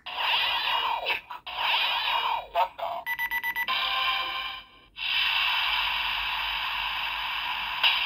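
Blay Buckle transformation-belt toy playing its electronic sound effects through its small built-in speaker: sweeping swooshing effects, a fast pulsing beep about three seconds in, then a steady sustained effect from about five seconds in.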